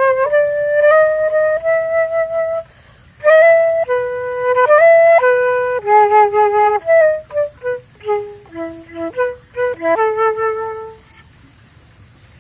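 Solo flute improvising a melody of held and stepping notes in short phrases, breaking off briefly about three seconds in and again near the end.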